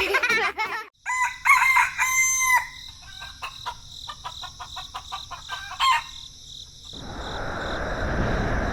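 A rooster crowing about a second in, followed by a few seconds of short clucking calls. Near the end a steady rushing noise swells up.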